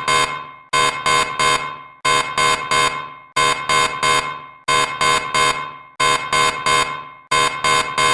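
Emergency alert alarm signalling a typhoon warning: quick sets of three sharp, ringing alarm strikes, each fading fast, with the set repeating about every 1.3 seconds.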